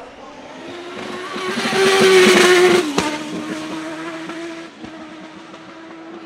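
Turbocharged Chevrolet V8 of a 1993 Penske PC-22 IndyCar passing at speed. It is loudest about two to three seconds in, then the pitch drops as it goes by, and it carries on more quietly and steadily.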